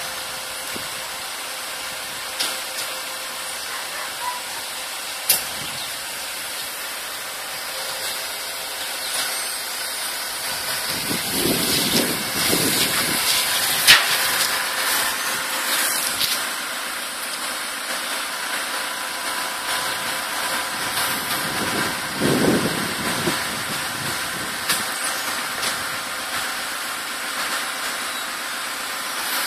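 Caterpillar 416E backhoe loader's diesel engine running under a steady hiss, swelling twice as the loader arm lifts the bucket over the dump truck, with a few sharp clicks.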